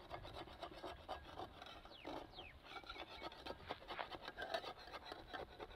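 Slotted metal spatula scraping around the inside edge of an aluminium kadai, loosening a thick chana dal batter cake from the pan so the oil can run underneath: a string of short, faint scratchy strokes.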